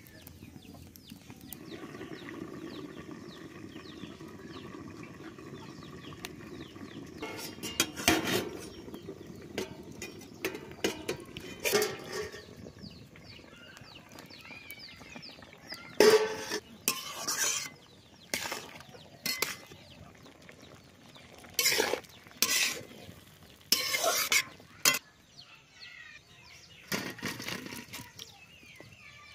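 Aluminium cooking pot and lid clattering on a clay wood-fired stove. A steady low hiss gives way to several sharp metal clanks in the second half, with chickens clucking in the background.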